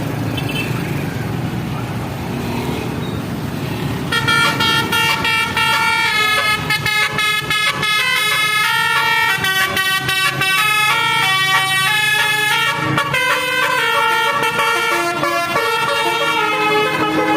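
Vehicle engine and road noise, then about four seconds in a bus's Basuri 'telolet' musical air horn starts playing a quick tune of short, stepping notes that runs on to the end.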